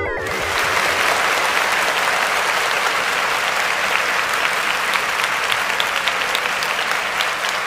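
Crowd applauding: steady clapping of many hands.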